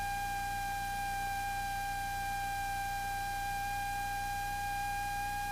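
A single steady electronic tone with fainter overtones over a faint low hum, with no engine or cabin noise: a recording artifact where the cockpit audio has dropped out.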